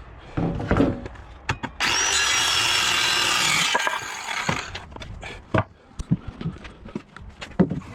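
Cordless drill boring into wood for about two seconds, a steady whirring bite that starts sharply and tails off, with scattered knocks and clicks of the workpiece being handled around it.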